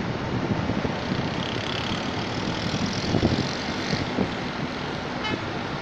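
Wind buffeting the microphone in uneven gusts over a steady hiss of distant city traffic.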